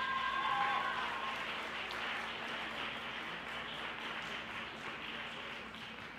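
Audience applauding steadily, the clapping slowly dying away.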